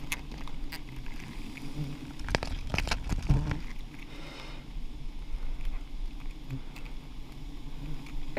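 Swarm of giant honey bees (Apis dorsata) buzzing as a steady hum around the comb being harvested. About two and a half to three and a half seconds in come a few sharp knocks and crackles from the comb and branches being handled.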